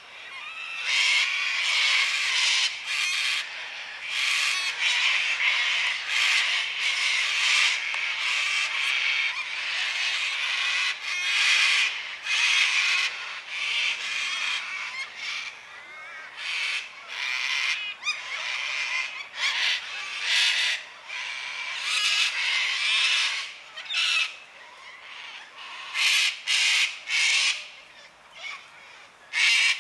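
A flock of cockatoos screeching: harsh, raspy calls overlapping one after another, now and then easing to fewer calls before bursting out again.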